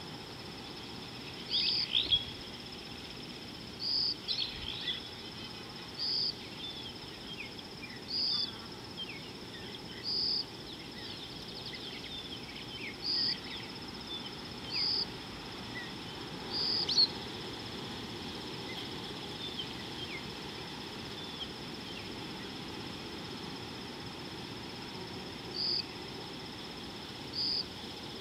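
Wild birds chirping over a steady, high insect drone. A short, high call repeats about every two seconds, pauses for several seconds after the middle, then returns near the end.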